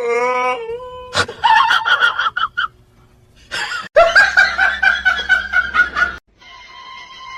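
Short bursts of laughter in rhythmic pulses, ending with a steady, high, even-pitched whine.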